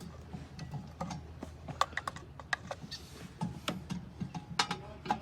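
Scattered small clicks and taps of hands handling tools and truck parts, irregular and light, with a faint steady low hum underneath.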